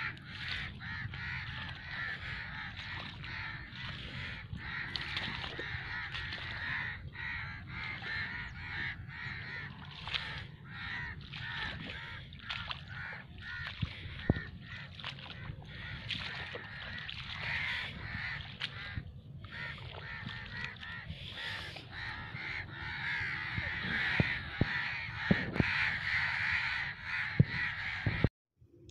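A large flock of birds calling and chattering continuously, many voices overlapping, growing louder in the last few seconds, with occasional sharp clicks. The sound stops abruptly near the end.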